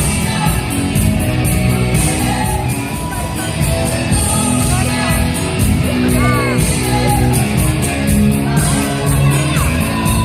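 Loud music with a steady beat and singing, with voices shouting and whooping over it now and then.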